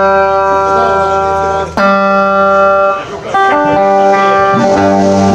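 Electric guitar chords struck and left to ring, a new chord every second or two.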